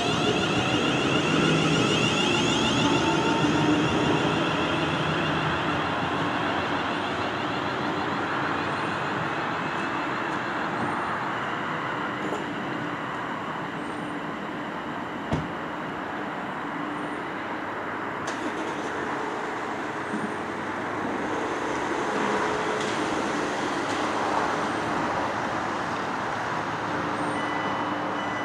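Class 350 Desiro electric multiple unit pulling away: a rising electric whine from its traction motors and steady wheel-on-rail noise, loudest as it passes close at the start and slowly fading as it runs away. A single sharp click about halfway through.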